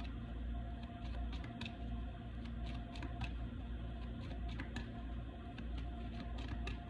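Tarot cards being handled: soft, irregular clicks and flicks, over a steady low hum.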